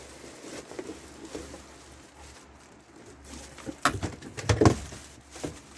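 Cardboard and plastic packaging handled while a box fan is unpacked: light rustling and scraping, then a few sharp knocks and thumps about four seconds in.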